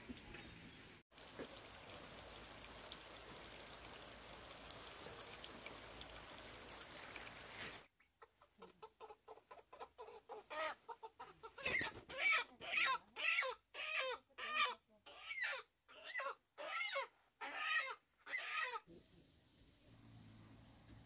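Chicken clucking in a rapid run of short, loud calls, starting about eight seconds in after a stretch of steady faint hiss and cutting off sharply a couple of seconds before the end.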